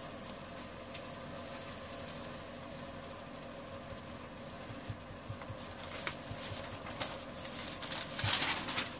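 Faint shuffling and small handling noises, then a louder rustle near the end as newspaper sheets are handled and unfolded.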